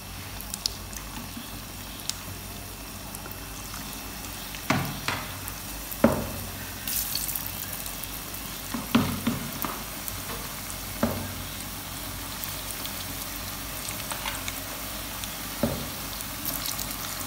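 Pakora batter deep-frying in hot oil in a wok: a steady sizzle. A few sharp knocks stand out as more spoonfuls of batter go into the pan.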